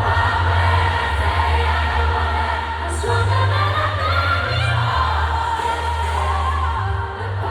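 Live pop music over a concert sound system, recorded from the crowd: a heavy, pulsing bass with a singing voice and many audience voices singing along.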